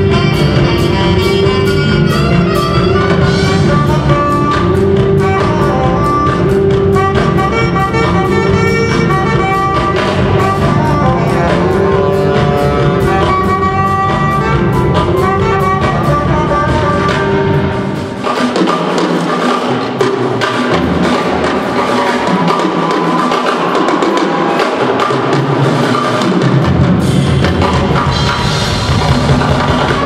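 Live jazz band with saxophones, trumpet, electric guitar and drum kit playing an up-tempo instrumental with a steady beat. About 18 seconds in the deep bass drops away for several seconds, leaving the horns and upper instruments, before the low end returns near the end.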